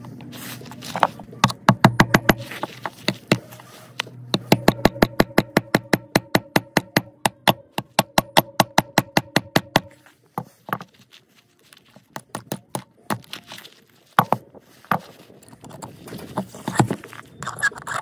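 Claw hammer driving nails into small tree branches: quick runs of strikes, the longest at about four a second for several seconds with a steady ringing note beneath it, then a lull and scattered strikes near the end.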